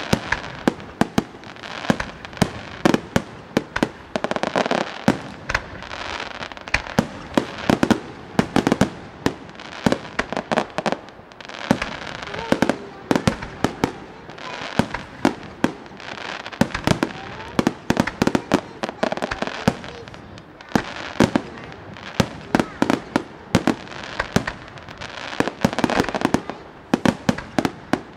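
Aerial firework shells bursting in rapid succession: many sharp bangs, often several a second, over a continuous crackle from glittering stars.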